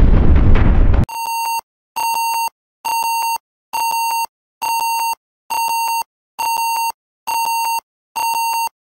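A loud low rumbling noise stops abruptly about a second in. A buzzy electronic beep near 1 kHz then repeats steadily, about once a second, each beep lasting just over half a second.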